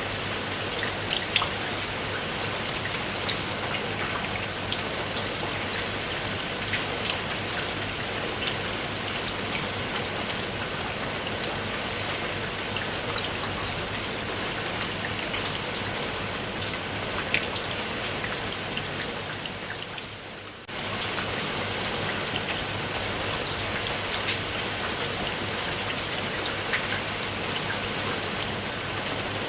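Heavy rain falling steadily: a dense hiss peppered with sharp drop ticks. About twenty seconds in, it fades lower for a moment, then cuts back in suddenly at full strength.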